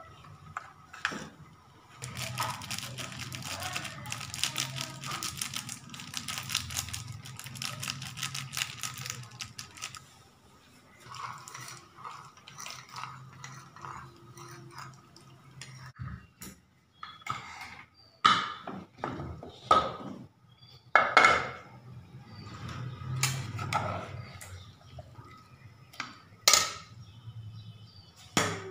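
A metal spoon clinking and scraping against a bowl and cooking pots, over a low steady hum. There is a run of quick clinks for several seconds, then slower, louder single knocks and scrapes.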